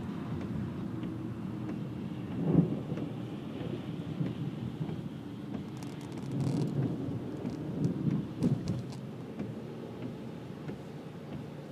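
Thunder rumbling, heard from inside a car over rain. A sharp loud peak comes about two and a half seconds in, and more rolls of thunder follow from about six to nine seconds in.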